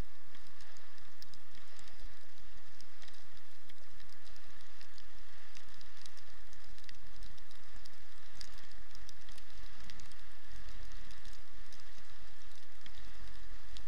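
Dog sled moving over snow: a steady hiss with many small, irregular crunching ticks and a low rumble underneath.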